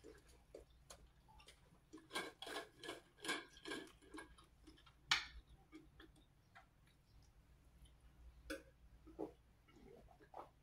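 Faint clicks and ticks from unscrewing the lid of a Coldest insulated water bottle, a quick run of them about two to four seconds in. A few single clicks follow as the bottle is handled and drunk from.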